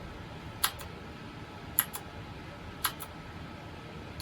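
A clicky Cyan-switch mechanical keyboard key tapped three times, about a second apart; each tap is a sharp double click, press then release.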